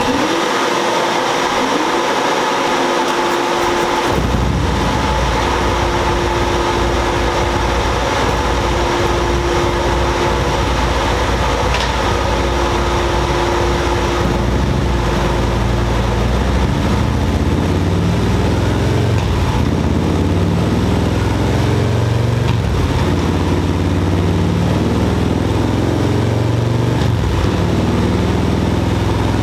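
Harley-Davidson Road Glide Special's Milwaukee-Eight V-twin, fitted with a Screaming Eagle torque cam and stage 2 tune, running on a chassis dyno. Its low engine note comes in strongly about four seconds in and grows fuller about halfway through.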